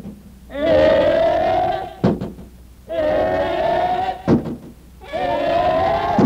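Radio show's closing jingle: three long held notes, each gliding slightly upward, with a sharp knock in each gap between them.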